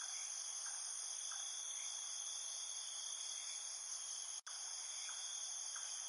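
Insects trilling steadily in a high-pitched, continuous chorus, with a momentary dropout about four and a half seconds in.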